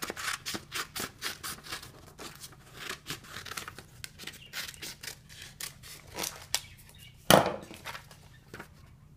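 Scissors snipping through a folded sheet of paper in a quick run of cuts, about three a second. About seven seconds in comes a single louder rustle of paper.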